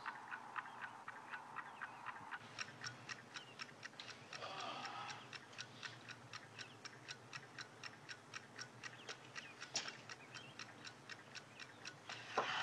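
A clock ticking steadily in a quiet room, about four ticks a second.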